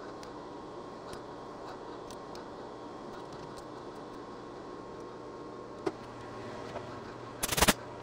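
A tap being turned by hand with a socket ratchet: faint regular ratchet clicks over a steady background hum, a sharp click about two seconds before the end, then a louder burst of metallic clicks and clatter near the end.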